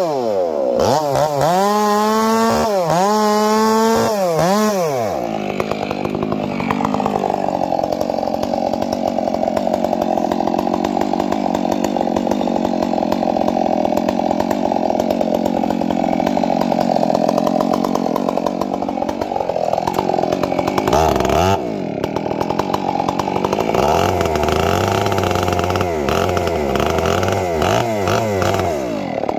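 Large gas chainsaw with a long bar cutting into the trunk of a big redwood being felled. It revs up and down three times, then runs steadily under load in the cut for about fifteen seconds, revs and eases off briefly, and settles back into the cut.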